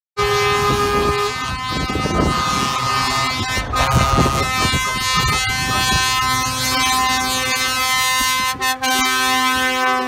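Air horns of a convoy of heavy trucks blaring together, several steady horn pitches held and overlapping, over the rumble of the lorries driving past. The horns start suddenly and dip briefly twice near the end.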